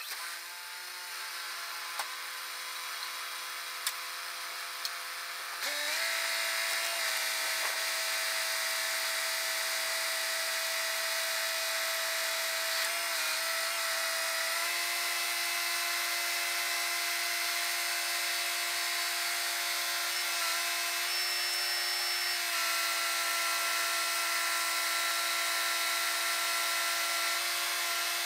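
Service truck's hydraulic crane running, with a steady engine-driven pump whine. About six seconds in it gets louder and a little higher, and it shifts slightly in pitch a few times as the boom is worked.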